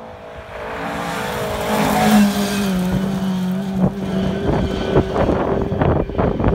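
Historic Ford Escort Mk2 rally car driving at speed on gravel. Its engine note swells to a peak as it passes about two seconds in, then drops slightly in pitch as it goes away, followed by irregular crackling thumps.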